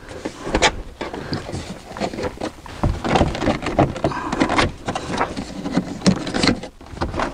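Plastic interior C-pillar trim panel of a Tesla Model S being pulled off by hand, giving an irregular run of creaks, clicks and rattles as the plastic flexes and its retaining clips let go.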